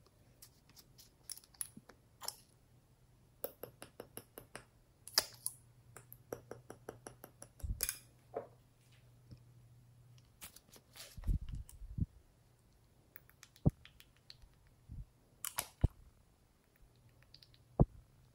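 Small glass dropper bottles handled close up: scattered sharp clicks and taps of glass and plastic caps, with runs of quick light ticks a few seconds in as the bottle and its contents are moved about. A low steady hum lies underneath.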